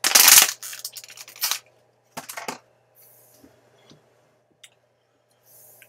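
Thin plastic water bottle crinkling loudly for about half a second, then softer plastic rustles and a couple of light clicks as bottles are handled.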